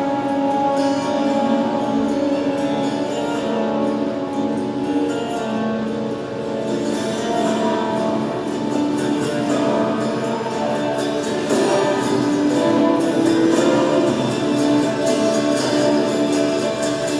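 Figure-skating free-program music played over the rink's sound system, with singing voices over held instrumental notes; a tapping percussion beat comes in and grows busier about halfway through.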